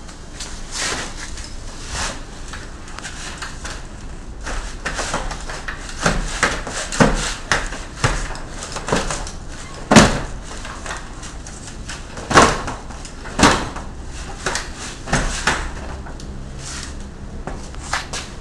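Wheelchair with air-shock A-arm suspension, set to 30 psi, clattering and knocking as a rider gets in, works the chair to load the shocks and gets out again. Three louder clunks come about ten, twelve and thirteen seconds in.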